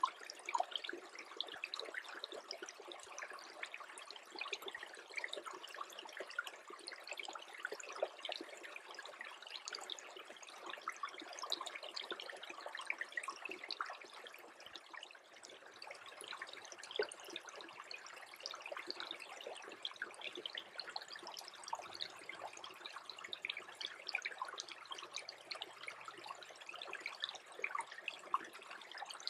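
Small creek trickling as it freezes, a dense, steady patter of tiny ticks and drips.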